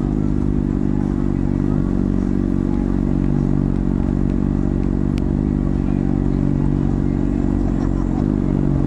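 Honda CBR600RR's inline-four through an aftermarket MGP exhaust, running at low, steady revs while the bike rolls slowly in traffic.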